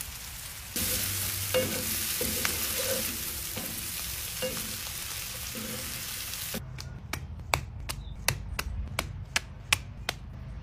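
Diced vegetables and bacon sizzling in a cast-iron skillet, stirred and scraped with a wooden spatula. The sizzle cuts off suddenly after about six and a half seconds, and a series of sharp clicks follows, about two a second.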